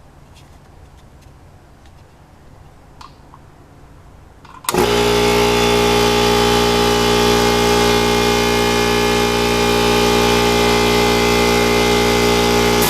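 Small 120-volt Craftsman oilless air compressor switching on about five seconds in and running loudly and steadily, measured at about 82 decibels.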